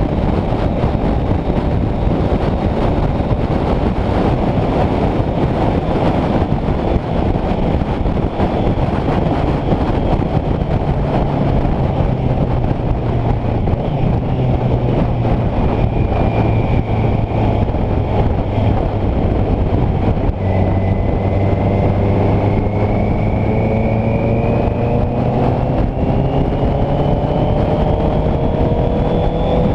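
Honda CBR650F's inline-four engine running under way, with loud wind noise over the microphone. The engine note holds steady for a while, then rises in pitch over the last ten seconds as the bike accelerates.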